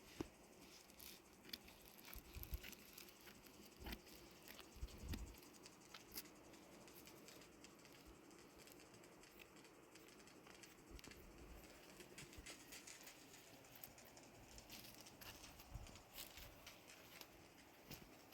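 Faint, irregular light taps, clicks and rustles, like small handling noises, with a few soft thumps in the first five seconds.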